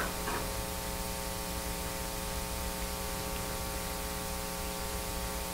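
Steady electrical mains hum over a faint hiss.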